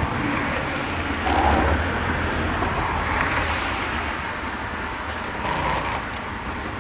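Passing road traffic: a steady low rumble that swells about a second and a half in, then settles.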